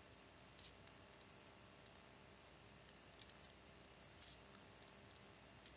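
Near silence broken by faint, scattered clicks of a stylus tapping and stroking on a tablet screen during handwriting.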